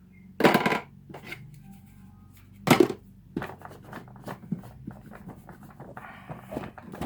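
Handling noises from working on the vacuum cleaner: two sharp knocks about half a second and nearly three seconds in, then a run of small clicks and rustles with a brief scraping hiss near the end, over a low steady hum.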